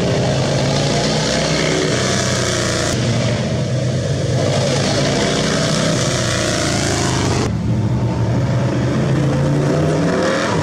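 Vintage motorcycle engine revving as the bike accelerates through a bend, its pitch rising and falling. Near the end, a vintage hot-rod roadster's engine is heard instead. The sound changes abruptly twice, about three seconds in and again past halfway.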